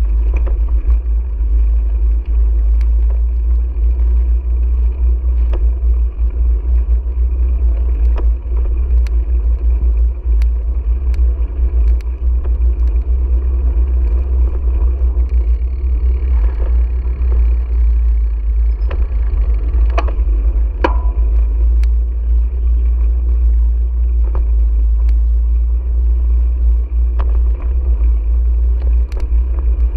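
Steady low rumble of wind and road vibration on a GoPro riding on a moving bicycle, with scattered sharp clicks and rattles, a couple of stronger ones about two-thirds of the way in.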